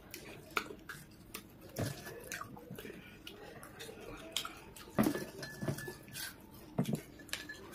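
Eating by hand at a table: irregular taps and clinks of fingers and food against ceramic plates and a small bowl, mixed with close-up chewing and mouth sounds, loudest about five seconds in.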